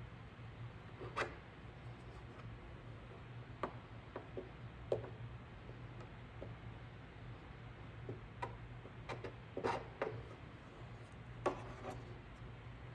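Scattered light taps and short scrapes of hand work on a cracked plastic body part being fused with a plastic welder and clear filler stick, over a faint steady hum.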